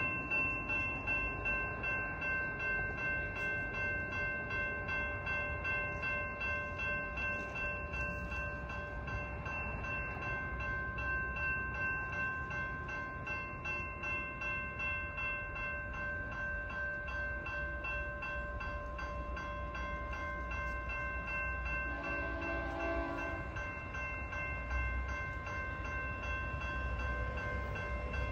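Railroad grade-crossing bell ringing steadily, about two strokes a second, over a low rumble. A train horn sounds briefly about 22 seconds in and starts again near the end as the train approaches.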